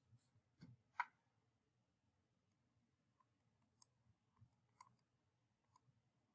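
Near silence broken by a few faint, short clicks: the loudest about a second in, then several softer ticks a few seconds later.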